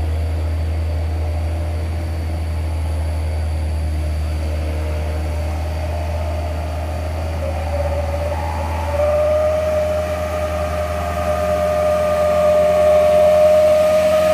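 Engine of a Mitsubishi pickup, its bed loaded with passengers, climbing a steep hill: a steady low engine drone. About nine seconds in a steady high whine joins it, and both grow louder as the pickup draws close.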